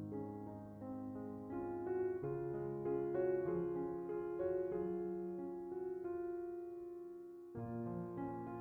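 Soft background piano music, slow sustained notes; a phrase fades out about seven and a half seconds in and a new one starts at once.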